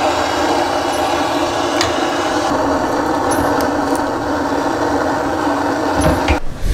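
Handheld propane torch burning with a loud, steady rush as its flame is held on firewood in a wood stove, with a few light knocks. The rush cuts off suddenly near the end.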